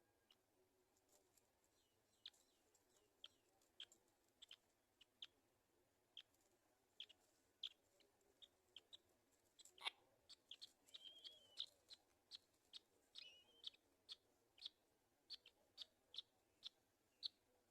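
Faint, short high-pitched chirps from black-winged kites, repeated at irregular intervals, thickening to about two a second in the second half, with a brief wavering call in the middle.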